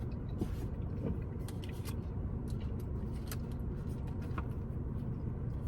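Scattered light clicks and taps of a utensil against a takeout container over a steady low hum.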